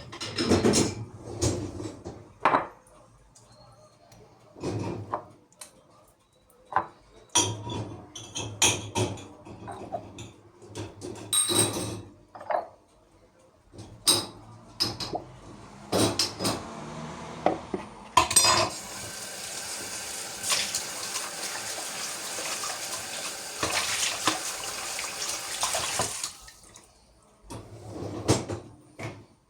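Dishes and cutlery clinking and knocking in irregular bursts, then water running steadily for about eight seconds before the clinking resumes.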